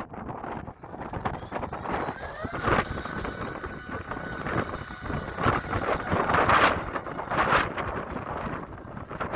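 Twin electric ducted fan motors whining high, their pitch rising with throttle a few seconds in, under heavy wind buffeting on the microphone with several strong gusts.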